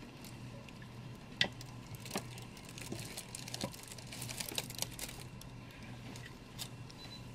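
Scattered small clicks and taps from a statue's miniature throne being handled and fitted onto its round base, with light rustling; the sharpest click comes about one and a half seconds in, and the ticks cluster a little past the middle.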